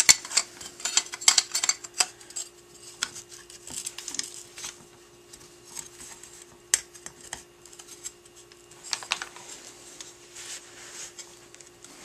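Two-piece quad rail handguard being handled and fitted on an AR pistol: a quick cluster of light metallic clicks and clinks in the first two seconds, then scattered single clicks.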